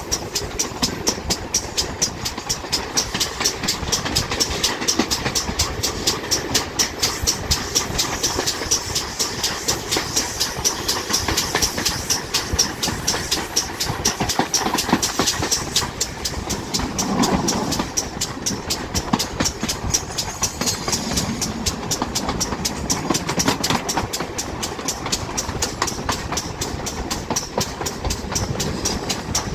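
Steam locomotive running along the line, heard from its own footplate: a quick, even beat of exhaust chuffs with wheel and rail noise underneath.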